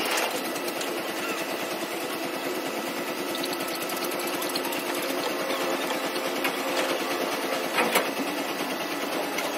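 Dump truck's engine and hydraulic tipping gear running with a steady, fast mechanical rattle as the tipper body lowers. A sharper knock comes near the end.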